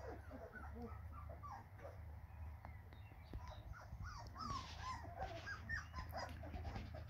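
A litter of young puppies whimpering and squeaking: many short, overlapping high whines that rise and fall, over a steady low hum.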